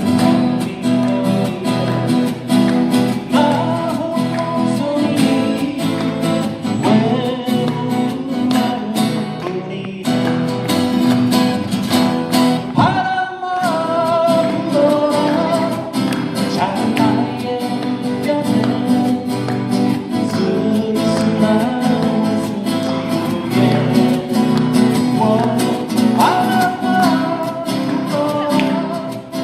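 Live folk-band music: acoustic guitars strumming and picking, with a singing voice carrying the melody.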